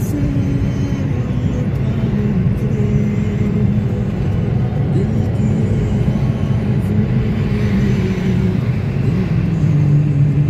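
Car driving at motorway speed, heard from inside the cabin: a steady low road and engine rumble.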